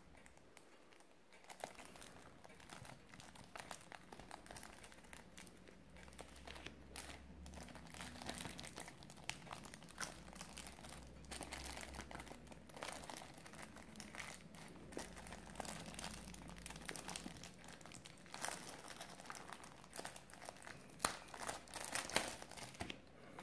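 Clear plastic packaging crinkling and crackling as it is handled to free a calculator. The crackles come in small scattered bursts and grow louder and denser near the end.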